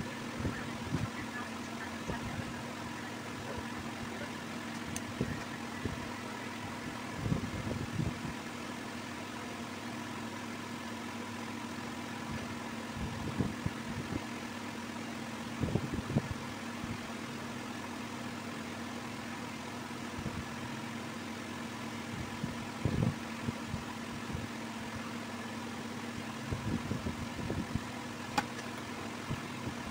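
A steady machine-like hum with a few held tones, broken every few seconds by short dull thumps.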